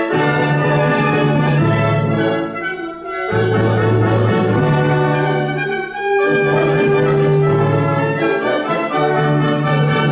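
Full wind and brass ensemble playing a loud passage at rehearsal, with brass prominent in sustained low notes and chords. The phrases break off briefly about three seconds and six seconds in.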